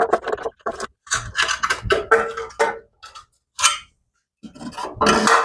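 Hand tools clicking and clattering against metal in irregular short bursts as bolts are undone under a car.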